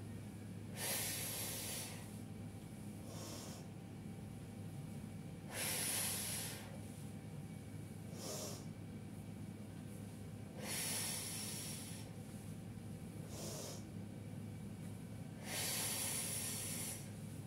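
A woman breathing audibly in and out, paced with repeated toe-touch stretches. Four longer, louder breaths come about five seconds apart, with a shorter, fainter breath between each, over a steady low hum.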